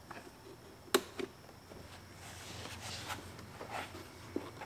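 Hand-fitting of plastic dash and glove-box parts in a car interior: a sharp click about a second in, a smaller one just after it, then rubbing and scraping of plastic, and a knock near the end.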